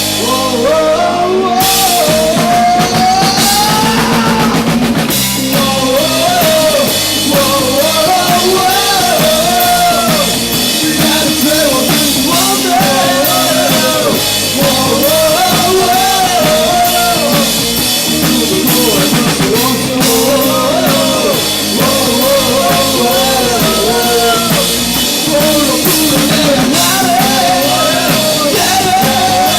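A rock band playing live, with drum kit, electric guitars and bass, and a wavering lead melody line carried on top.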